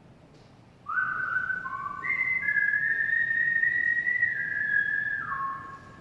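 A man whistling a tune: held notes that step up and down in pitch, starting about a second in and dying away near the end.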